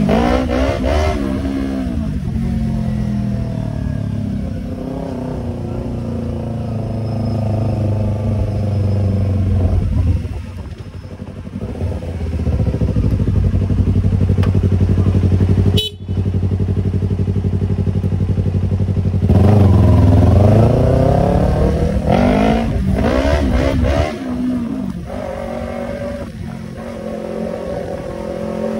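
Yamaha YZF-R25's parallel-twin engine through an aftermarket Tiger exhaust, riding on the road. Its pitch rises as it accelerates near the start and again about twenty seconds in, and otherwise holds steady at speed. The sound cuts out for an instant about sixteen seconds in.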